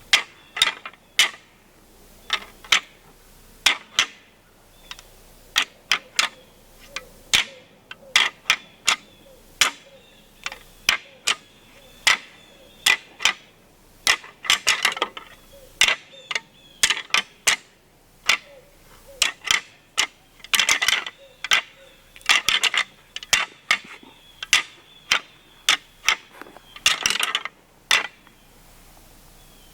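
A long series of sharp, irregular clacks and knocks of hard objects striking together, some single and some in quick rattling clusters.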